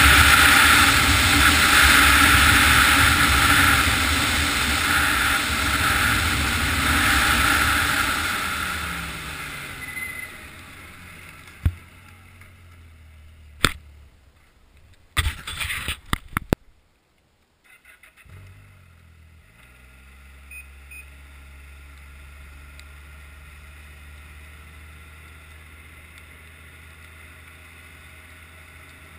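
Snowmobile running at speed on a packed snow trail, engine and wind noise together, its engine note falling and fading as it slows about nine seconds in. A few sharp knocks follow, then the engine idles steadily through the second half.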